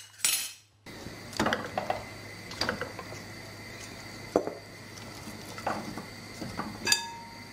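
A few light, scattered knocks and clinks as pieces of beef trotter are set into a metal cooking pot of chickpeas, over a steady low hum.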